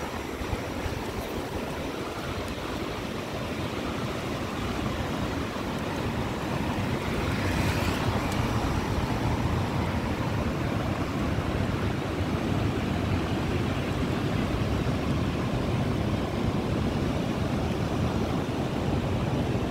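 Ocean surf washing steadily, with wind rumbling on the microphone; it grows slowly louder, and a wave's wash swells briefly about eight seconds in.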